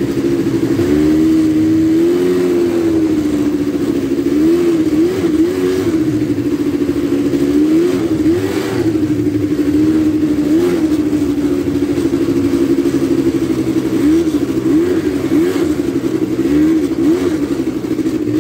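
Quad bike (ATV) engine running while riding over sand, its steady note dipping and rising again and again as the throttle is eased and opened.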